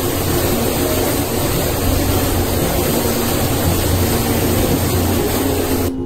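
Hot-spring water gushing from a spout into a bath: a loud, even rush of water that cuts off suddenly near the end.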